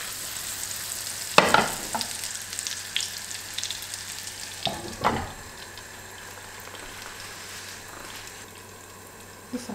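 Ricotta fritters sizzling in melted butter in a nonstick frying pan. There is a sharp knock about a second and a half in and another around five seconds in, when the glass lid goes on, after which the sizzling is quieter.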